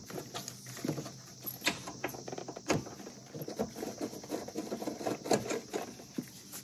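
Light, irregular clicks and scrapes of a hand tool working the 6 mm hex-head bolts on a steering column.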